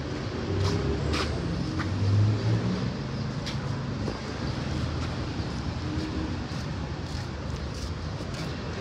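Motor vehicle running: a steady low engine and road rumble, with a few short sharp clicks and knocks scattered through it.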